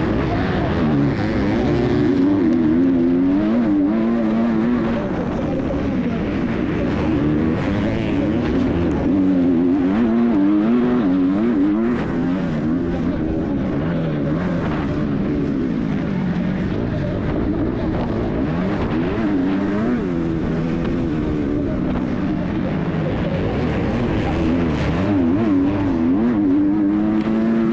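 250cc MX2 motocross bike engine racing hard, its pitch rising and falling over and over as the throttle is opened and closed and the gears change, heard close up from the rider's onboard camera.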